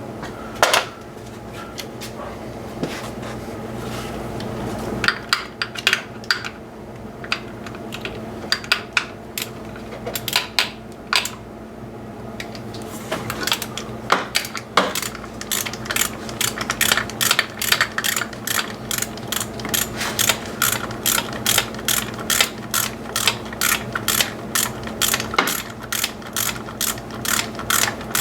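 Hand ratchet wrench clicking as a 10mm fastener is worked loose. The clicks come irregularly at first, then settle into a steady run of about three a second in the second half.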